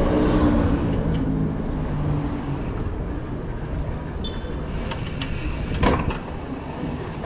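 Wind and road rumble on the camera microphone while riding through the street, with a motor engine running close by during the first couple of seconds and a sharp click about six seconds in.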